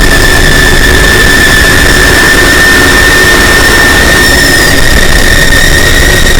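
Fan-made Emergency Alert System alarm tone, boosted until it clips: one steady high-pitched tone buried in harsh distortion noise, unbroken and very loud.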